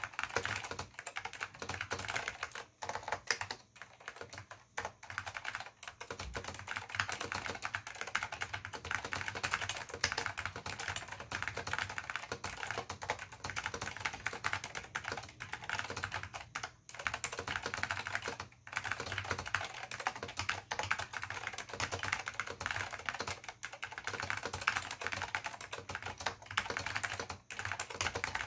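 Fast, continuous touch-typing on an Apple Extended Keyboard II with salmon Alps SKCM switches and Apple Alps keycaps: a dense stream of keystrokes with a few brief pauses.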